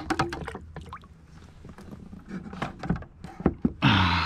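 Knocks and thunks on the plastic hull of a fishing kayak as gear is handled and a bucket of water is pulled up onto the deck, with a louder rushing scrape lasting about a second near the end.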